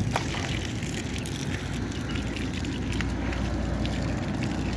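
Flock of Australorp hens feeding, with scattered sharp pecking clicks over a steady low rumble.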